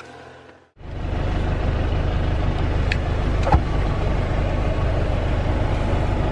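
Car driving, engine and road noise heard from inside the cabin, starting suddenly about a second in after a faint low hum. A short knock about three and a half seconds in.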